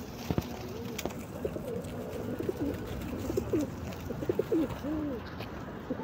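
Feral pigeons cooing: several low coos that rise and fall in pitch, repeated from about a second in, from a flock feeding on grain.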